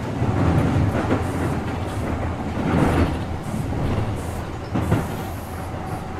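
Keihan 2600 series 0-subseries electric train running, a steady rumble with a few sharp clacks of the wheels over rail joints.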